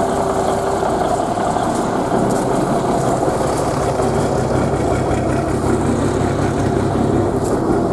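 Peterbilt 359 dump truck's diesel engine idling steadily.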